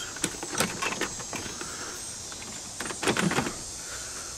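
Light clicks and knocks of trolling motor parts and wiring being handled during disassembly: several in the first second and a half, then a short cluster about three seconds in.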